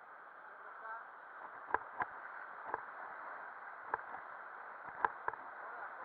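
River water rushing as a steady hiss, with six sharp knocks scattered through it, two close together about two seconds in and two more close together about five seconds in.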